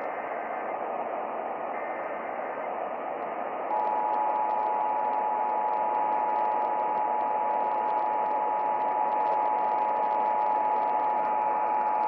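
AM radio static from a Sangean portable radio's speaker. About four seconds in, the two-tone Emergency Alert System attention signal starts over the static and holds steady for about eight seconds, marking a Required Monthly Test on 1670 AM.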